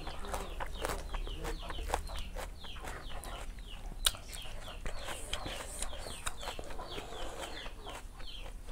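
Chickens calling: many short falling calls, several a second, with a sharp click about four seconds in.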